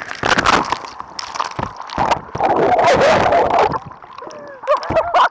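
Seawater splashing and rushing over the camera's microphone as it is plunged into the sea in a fall from a towed banana boat, with gurgling. The loudest, longest rush of water comes about two and a half seconds in.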